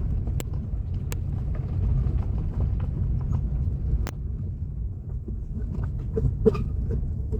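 Car driving on a dirt road: a steady low rumble of engine and tyres, with a few sharp clicks scattered through it.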